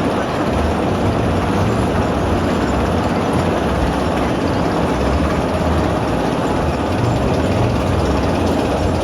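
Steady, loud rush of wind over the microphone with the rumble of a spinning roller coaster's train running on its track.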